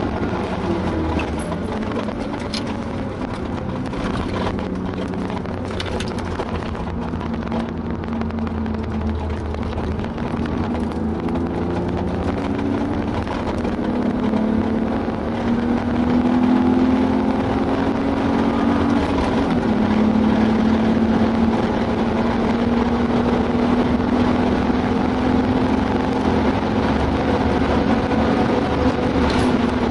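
BMW E36 328i's straight-six with a Remus cat-back exhaust, heard from inside the cabin along with tyre and wind noise. The engine note falls as the car slows early on, then climbs steadily under hard acceleration, dropping once at a gear change about two-thirds of the way through and climbing again.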